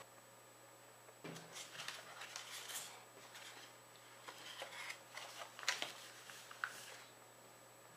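Sheet of paper rustling and crinkling as hands fold and crease a paper airplane, starting about a second in, with a couple of sharper crackles near the end.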